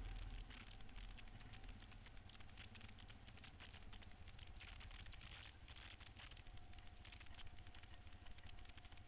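Faint low rumble of a quad bike's engine running at low speed, with continuous rattling and clatter from the machine jolting over a rough dirt trail.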